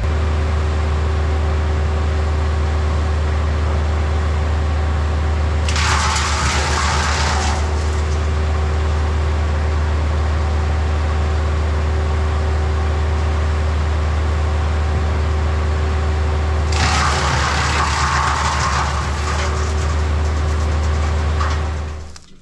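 Wood chipper's engine running steadily, with two loud spells of branches being fed in and chipped, about six seconds in and again from about seventeen seconds; the sound cuts off near the end.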